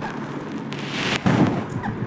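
A short rustling burst about a second in, ending in a dull thump. A rose-ringed parakeet gives a few brief, falling chirps around it.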